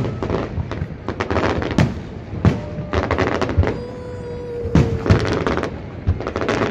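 Fireworks display: aerial shells bursting in a dozen or so sharp bangs at irregular intervals, with crackling between them.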